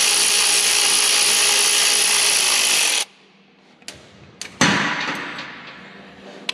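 Cordless electric ratchet running steadily as it backs out the last 9/16-inch bolt of a PTO cover on an Allison transmission, cutting off suddenly about three seconds in. A couple of short clicks follow, then a louder sudden noise that fades over about a second and a half.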